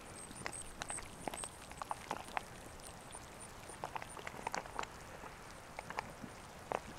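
Footsteps on crusty, gravelly sinter ground: irregular soft crunches and clicks, no steady rhythm.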